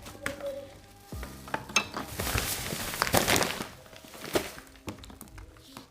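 Dry ingredients being poured into a mixing bowl: a rustling hiss for about two seconds in the middle, with light clicks of a utensil or container before and after.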